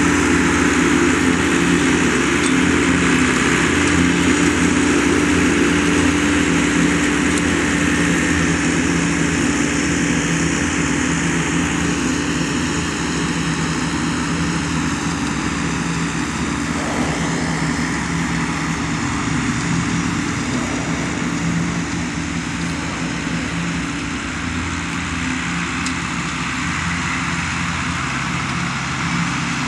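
Large Jacobsen mower's engine running steadily under load as it mows, a constant low hum with a haze of noise over it, gradually getting a little fainter.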